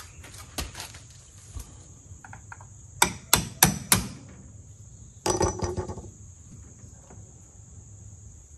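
Four sharp hammer taps in quick succession, knocking at the small pin that holds the shift linkage in an outboard's lower unit. A brief rough noise follows a little over a second later.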